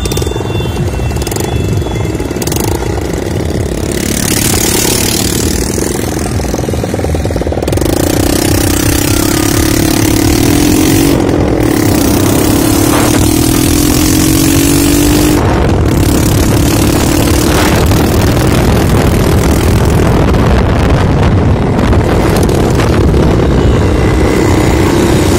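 Motorcycle engine running steadily while riding, with heavy wind rumble on the microphone.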